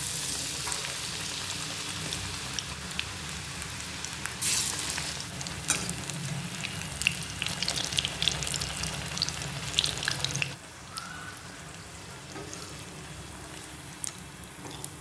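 Battered spinach leaves deep-frying in hot oil in a steel kadai: a steady sizzle full of small crackling pops, which drops to a quieter hiss about ten seconds in. A slotted spoon stirs and scrapes in the pan now and then.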